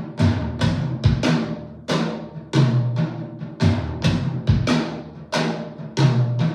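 Drum-heavy music with deep, booming drum hits about twice a second, played through Cerwin-Vega VEGA10 active studio monitors and heard in an echoey room.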